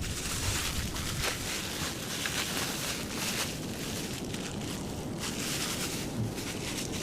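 Steady rushing wind noise on an outdoor field camera's microphone, with faint scattered rustles and low rumbling.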